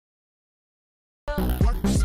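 Dead silence for just over a second, then a music track cuts in abruptly with a heavy bass beat.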